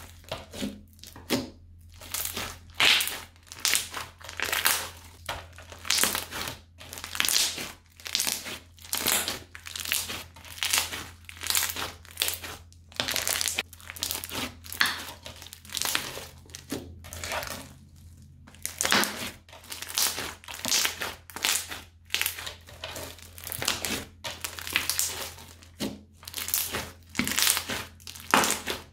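Hands squeezing, pressing and folding bead-studded crunchy slime. Each press gives a crunching, crackling squish, over and over at roughly one or two a second.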